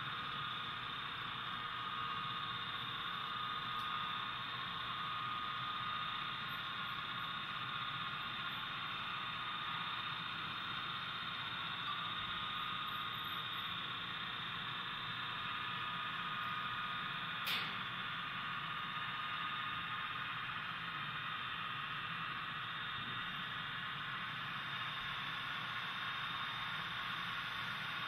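Steady hiss of room noise with a faint high whine running through it, and one sharp click about two-thirds of the way through.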